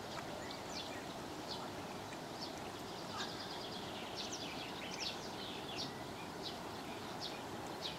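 Small birds chirping, with short high calls scattered irregularly throughout, over a steady hiss of outdoor background noise.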